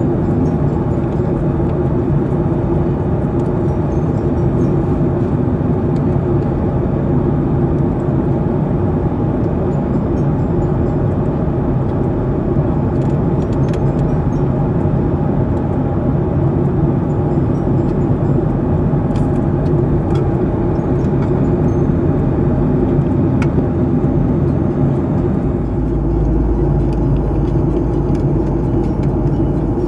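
Airliner cabin noise in flight: a steady drone of engines and rushing air with a constant hum. A deeper rumble comes in near the end.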